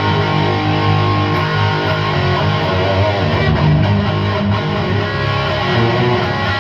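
Electric guitar played through a Chupacabra 100 amplifier with its clipping diodes engaged, in a basic factory-style setup: sustained chords and notes ringing out steadily.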